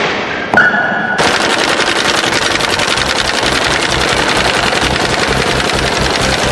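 A sharp hit from a hockey shot about half a second in, then the fast, even clatter of a tractor-drawn sickle-bar mower cutting grass over the low, pulsing run of the old tractor's engine.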